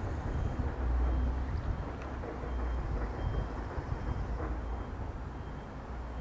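Steady low rumble of a distant Pendolino electric train (ČD class 680) approaching on the main line, with a faint short high beep repeating about every half second.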